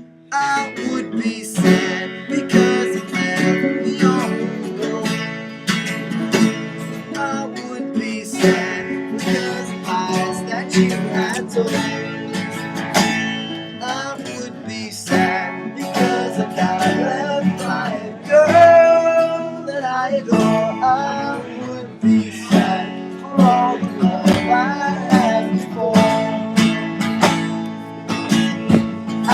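Acoustic guitar strummed and picked in an instrumental passage of a song.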